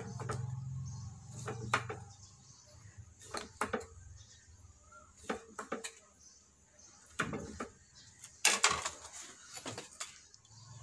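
Cleaver cutting limes into wedges on a wooden chopping block: irregular sharp knocks of the blade striking the wood, in small groups, the loudest cluster a little past the middle.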